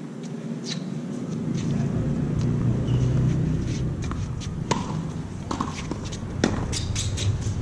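Tennis balls struck by rackets and bouncing on a hard court during a rally: a series of sharp pops, the loudest about six and a half seconds in as the near player hits a forehand, with scuffing footsteps, over a steady low rumble.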